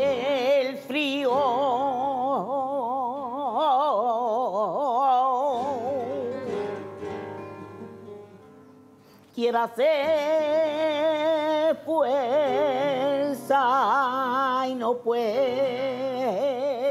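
A woman singing flamenco in long, wavering, ornamented phrases, accompanied by a flamenco guitar. The first phrase fades away about eight seconds in, and a new phrase begins about a second later.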